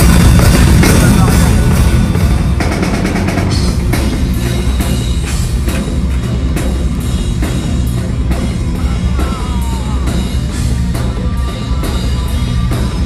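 Live rock band playing loud, with a drum kit's hits driving a steady beat under a dense full-band sound.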